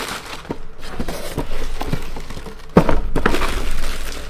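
Packaging being handled in a cardboard box: rustling with scattered knocks, and a sharper knock a little under three seconds in.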